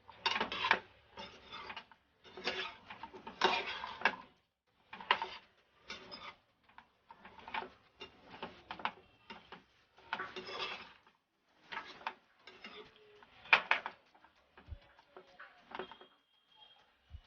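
Spatula scraping and stirring potato pieces in a cooking pan, in irregular strokes about one every second or less.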